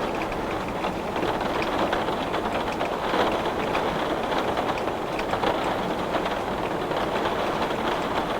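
Heavy rain beating on window glass: a steady, dense hiss of drops with individual drop ticks, swelling slightly about three seconds in.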